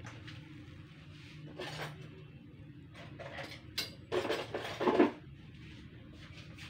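Kitchen utensils clinking and knocking against a cutting board and glass bowl as food is handled, a few scattered knocks with the loudest cluster between about four and five seconds in.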